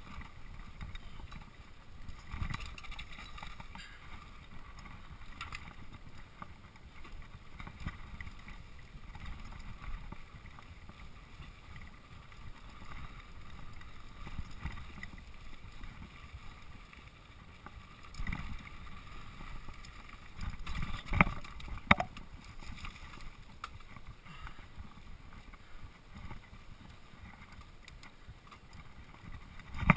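Mountain bike rolling fast down a dirt singletrack: tyre noise on the dirt and the bike rattling over bumps. A few sharp knocks about two-thirds of the way through are the loudest sounds.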